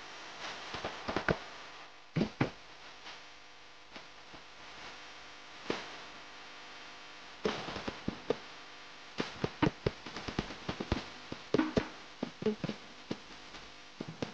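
Irregular small clicks and taps from hands working at a cake turntable while gold sugar pearls are set into the icing, coming thicker in the second half.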